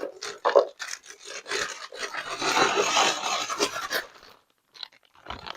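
Plastic bag being handled and pulled open, crinkling and rustling irregularly before stopping about four seconds in.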